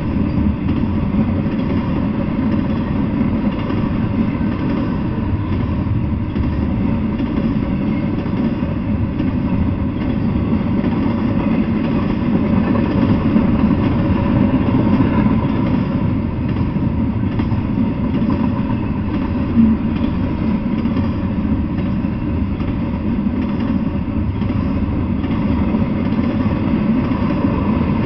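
Double-stack intermodal freight train rolling past: a steady rumble of steel wheels on the rails, with a single light knock about two thirds of the way through.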